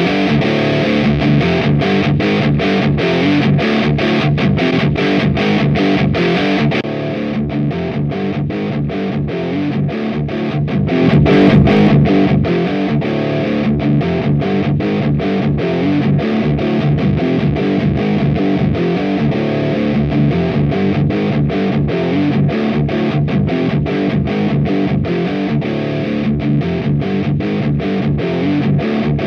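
High-gain distorted electric guitar through an AMT Bricks R/S Lead 12AX7 tube preamp, playing a rhythmic metal riff cut into short, evenly spaced stops. About seven seconds in the tone turns darker as the top end drops away, and a little later there is a brief louder swell.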